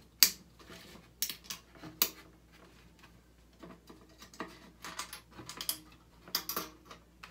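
Irregular metallic clicks and small rattles of a bathroom exhaust fan's spring-hung cover and its wire springs being handled and unhooked. The sharpest click comes about a quarter second in.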